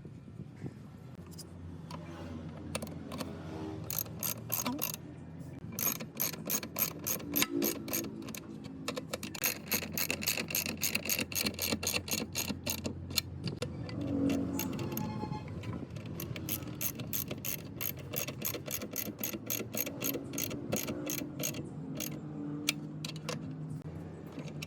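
Rapid runs of metallic ratcheting clicks from a hand tool at work on the plate compactor's parts, over a low steady hum.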